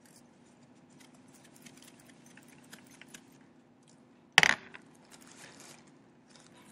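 Light handling noises with scattered small clicks, and one sharp clatter of a hard object knocked or set down about four and a half seconds in.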